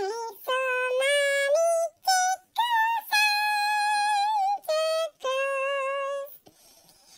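A high-pitched singing voice with no audible accompaniment, holding notes in short phrases separated by brief breaks, falling quiet near the end.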